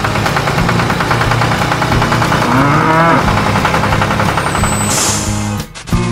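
A short cow moo, rising then falling in pitch, about two and a half seconds in, over a steady, rapidly pulsing mechanical running sound like a small motor. The running sound cuts off abruptly near the end.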